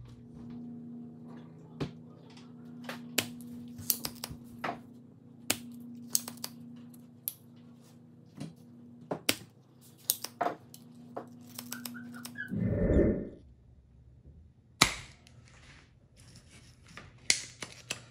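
Irregular sharp clicks and snaps of soldering tools, a soldering iron and a spring-loaded desoldering pump, working on the nickel tabs of a BMS board while it is being desoldered from a lithium battery pack. A steady low hum runs underneath and stops about twelve seconds in, followed by a brief rushing noise.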